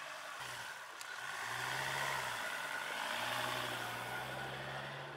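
Off-road vehicle engine running under load, its pitch dipping and rising again about a second in, with a rushing noise that grows louder in the middle and fades near the end.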